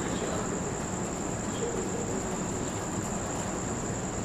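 Crickets chirping in one steady high-pitched trill over a hiss of hall noise.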